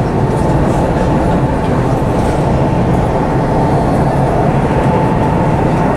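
Dubai Metro train running at speed, a steady rumble of wheels and running gear heard inside the carriage.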